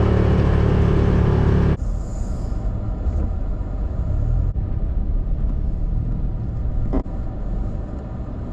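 Motor vehicle running: a steady engine drone for the first couple of seconds, then, after a cut, a lower steady road rumble.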